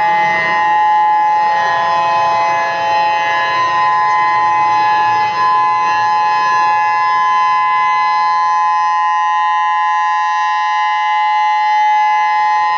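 EOWS 612 electronic civil defense siren sounding a steady, unwavering tone: the tsunami warning alert.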